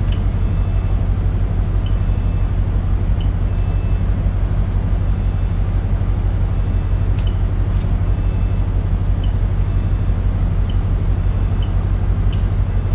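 Steady low hum of the ship's machinery and ventilation on a container ship's bridge, with a few faint short clicks as buttons are pressed on a SAAB R4 AIS unit.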